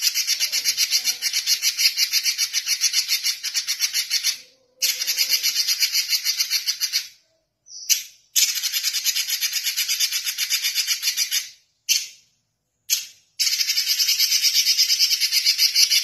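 Red-billed leiothrix (Pekin robin) singing in long runs of rapid, fast-repeated high notes, broken by short pauses about four, seven and twelve seconds in.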